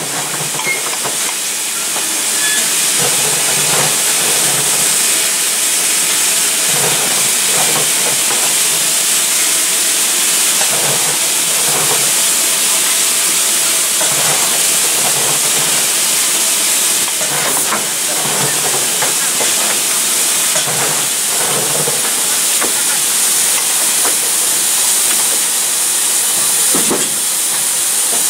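Narrow-gauge steam locomotive standing with steam hissing steadily and loudly, with soft irregular pulses beneath the hiss.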